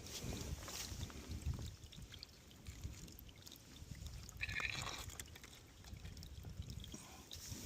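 Faint trickle of water from a small trail spring, over a low rumbling noise.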